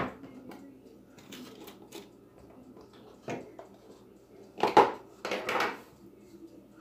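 Kitchen knife and cutting board being handled on the counter: a clack at the start, a knock about three seconds in, and the loudest clatter near five seconds followed by a short scrape as the board is picked up.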